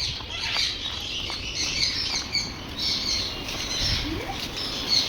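A crowd of small aviary birds chirping and twittering over one another without a break, with scattered soft clicks and wing flutters.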